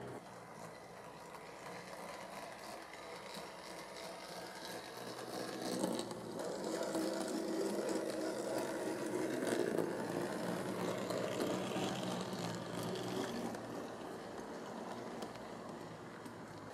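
HO-scale Tenshodo DF50 model diesel locomotive and its mixed train running on the layout track: a small motor's whir with the rattle and clicking of wheels on rail. It grows louder from about six seconds in as the train passes close, then fades again.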